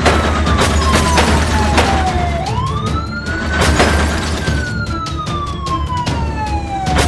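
A siren wailing slowly: its pitch falls for about two seconds, rises quickly, holds, then falls again to the end, over background music with a steady low hum and a clatter of sharp knocks.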